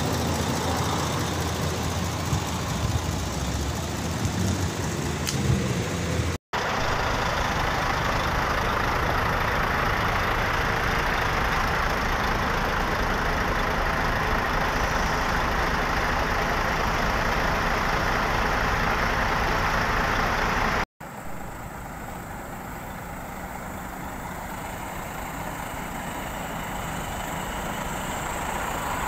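Heavy prime-mover trucks' diesel engines running, heard in three clips with abrupt cuts between them. The middle stretch is a steadier rushing noise, and in the last clip the engine sound slowly builds.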